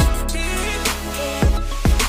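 Background music with a hip hop / R&B feel: heavy bass and a steady drum beat under sustained pitched notes.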